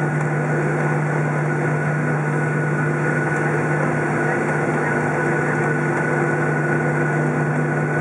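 Boeing 737 cabin noise while taxiing, with its CFM56 turbofan engines at idle: a steady hum with a constant low drone and a thin, even whine, unchanging throughout.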